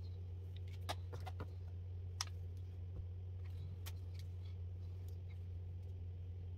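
A steady low hum with a handful of light clicks and taps as makeup brushes and products are handled, most of them in the first four seconds or so.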